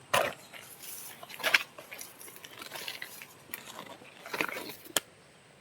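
Footsteps crunching and rustling through dry leaves and twigs on the forest floor: a few uneven crunches about a second apart, then a sharp snap near the end.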